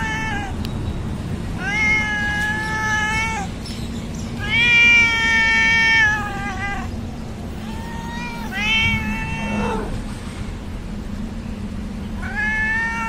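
A cat meowing in long drawn-out calls, each held on a steady pitch for one to two seconds and sagging at the end. The tail of one call comes at the start, followed by four more, about one every three to four seconds.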